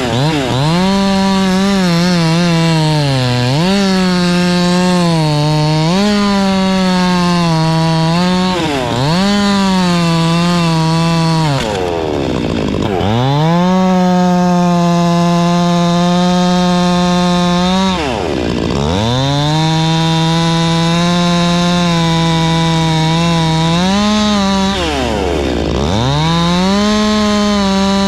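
Two-stroke chainsaw held at full throttle cutting through a large elm log, the engine dropping back briefly about five times and revving straight up again.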